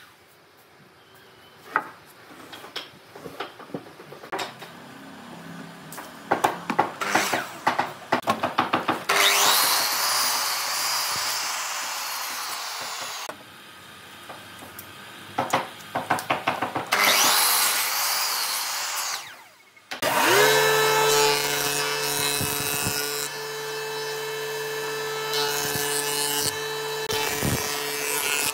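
Thick weathered wooden beams knocked and shifted about, then a miter saw cutting through a beam in two long passes. About two-thirds of the way in, a jointer's motor starts and runs steadily with an even hum.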